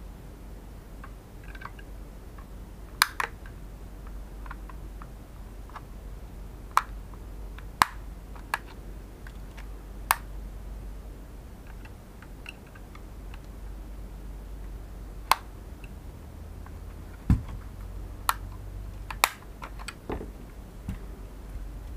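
Scattered sharp plastic clicks and taps, about a dozen at irregular intervals, as a DJI Mavic Air remote controller is handled and its casing pried open with a small tool, over a low steady hum.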